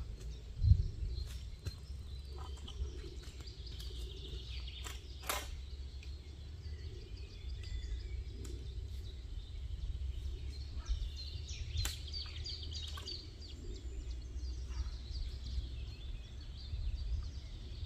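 Lakeshore ambience: small birds chirping over a low, steady rumble of wind on the microphone. There is a thump just under a second in and a few sharp clicks later on.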